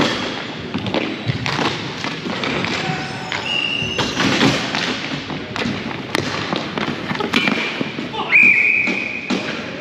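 Basketball game sounds: the ball and players' feet thudding and tapping on the court floor again and again, with voices in the background. A high steady tone sounds briefly about three and a half seconds in, and a louder one lasting about a second comes near the end.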